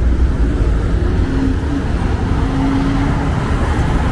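Street traffic: cars driving past on a wide city avenue, a steady low rumble of engines and tyres. A steady engine hum comes through briefly twice in the middle.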